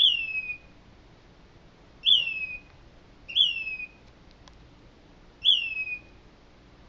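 A bird calling repeatedly: four loud whistled calls, one to two seconds apart. Each is a sharp upward note that slurs down in pitch over about half a second.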